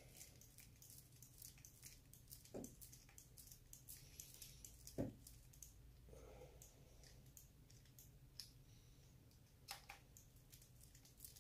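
Near silence with faint, scattered clicks and taps of small tools and plastic RC axle parts being handled, the clearest about five seconds in.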